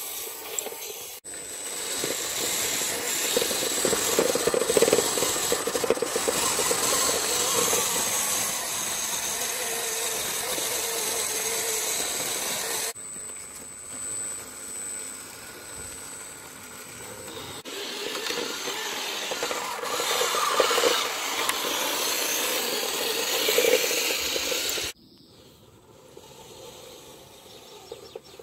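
Electric motor and gearbox of a WPL B24 GAZ 6x6 RC truck whining steadily as it drives over dirt, with its plastic chassis rattling. The sound changes abruptly a few times and becomes much fainter near the end.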